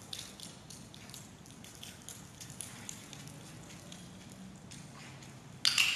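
Faint, scattered ticks of footsteps and a beagle's paws as a person and dog move at heel across a matted floor. A sudden loud, sharp sound comes near the end.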